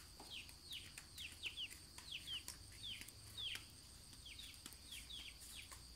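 Chicks peeping: a run of short, falling peeps, two or three a second, over a faint steady high-pitched hum.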